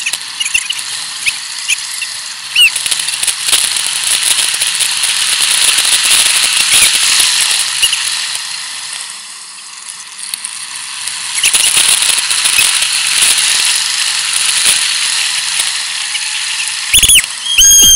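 Continuous rushing and rattling from a bicycle ridden fast along a road, picked up by a camera mounted on the bike. A few short, high squeals come near the end.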